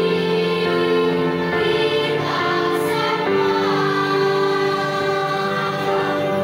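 Children's choir singing together, holding long notes.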